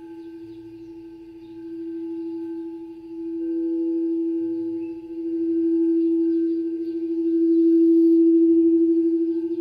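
Frosted quartz crystal singing bowls from a seven-bowl chakra set, played with a mallet. One low bowl tone keeps sounding, growing louder in slow swells with a fast wavering beat, while fainter higher bowl tones hum above it.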